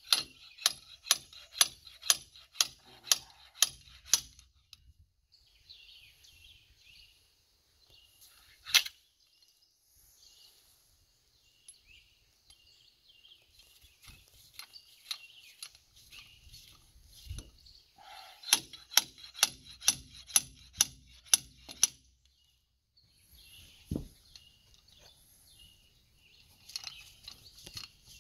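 Hand work with a metal tool on the top of a dump trailer's telescoping hydraulic cylinder ram. Sharp clicks come in steady runs of about two or three a second, one near the start and another after about 18 seconds, with a single louder knock about 9 seconds in.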